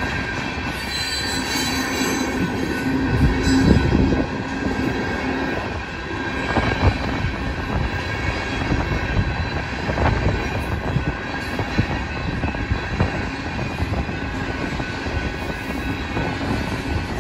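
Loaded coal gondolas of a freight train rolling past, their wheels rumbling steadily on the rails with a steady high-pitched squeal over the rumble.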